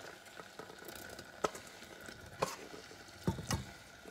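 Chopped cucumber mass tipped from a bowl into a pot of hot vinegar syrup: soft wet sliding and plopping with a few light knocks, over a faint sizzle.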